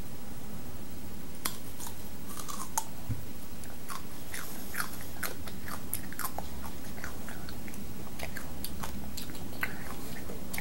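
A young child biting into and chewing a whole raw cucumber: irregular wet, crunchy crackles start about a second and a half in and continue on and off.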